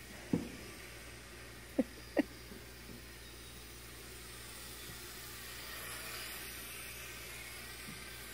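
Faint whine of a small radio-controlled Super Cub model airplane's motor and propeller flying around, swelling and shifting in pitch as it passes nearer, about halfway through. A few short squeaks sound in the first couple of seconds.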